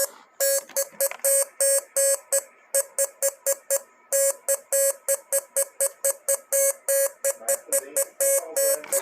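Morse code beeps: a single buzzy tone keyed on and off in short and long beeps, dots and dashes, several a second.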